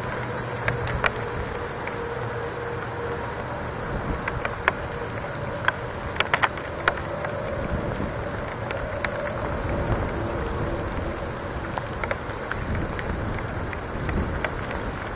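Rain falling steadily in a thunderstorm, with scattered sharp taps of drops striking close to the microphone.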